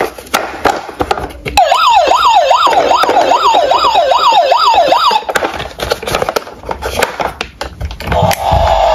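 Electronic siren of a toy police car, a fast wail sweeping up and down about twice a second for three or four seconds, starting about a second and a half in. It comes amid clicks and knocks of hands handling the plastic car.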